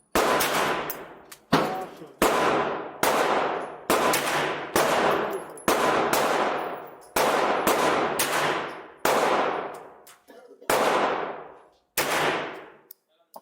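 Ruger Mark IV .22 pistol firing a string of single shots, about one a second, each shot ringing off in a long echo.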